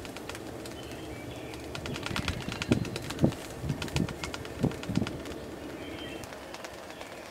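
Birds calling: a run of short, low cooing notes about half a second apart, with thin high songbird calls around them.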